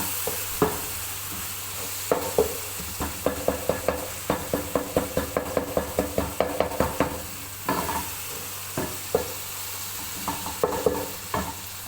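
A tomato, onion and capsicum sauce with tomato paste sizzling in a pan as it is stirred, the stirring utensil knocking against the pan. The knocks come in a quick run of about four a second through the middle, with scattered single knocks before and after.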